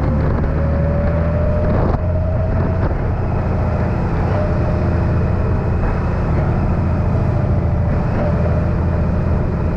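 Honda Gold Wing's flat-six engine running under way, with a steady low rumble of wind and road noise; a faint whine rises slightly in pitch over the first few seconds.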